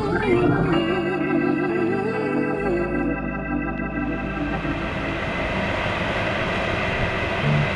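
Background music of sustained organ chords, with a wavering melody line in the first half that thickens into a denser held sound.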